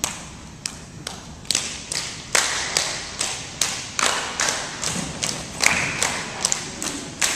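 Tinikling poles being knocked on the floor boards and against each other in a steady rhythm, about two to three sharp knocks a second, ringing in a gymnasium.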